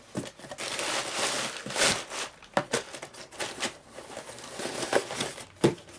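Rummaging through a box of shop stock: packaging crinkling and rustling for about two seconds, then scattered clicks and knocks as items are handled and set down.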